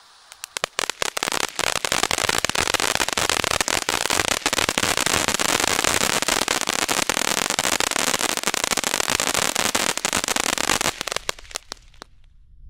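Ground fountain firework crackling: a few sharp pops build within a couple of seconds into a dense, continuous crackle of spark effects, which thins to scattered pops and stops near the end.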